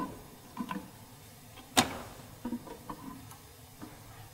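A few sharp clicks as the push buttons on a forward/reverse start-stop motor control station are pressed. The loudest click comes about two seconds in.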